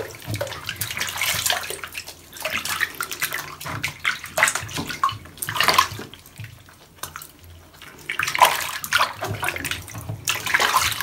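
Water sloshing and splashing in a plastic basin as hands rinse shampoo out of a kitten's wet fur, rubbing and squeezing it. The splashes come irregularly.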